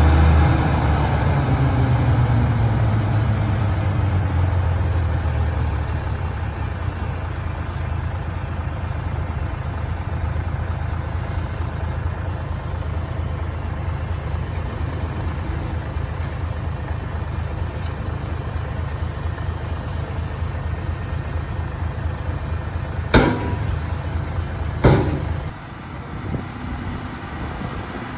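Heavy diesel engine running, its pitch and level falling over the first few seconds, then settling to a steady idle. Near the end come two sharp knocks about a second and a half apart, after which the engine sound drops lower.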